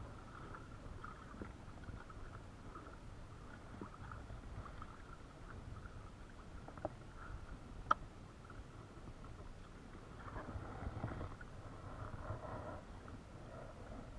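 Pedal-drive fishing kayak under way on calm sea: a low, steady rumble of water along the hull with a faint, flickering drive noise, two sharp clicks about seven and eight seconds in, and louder handling noise near the end.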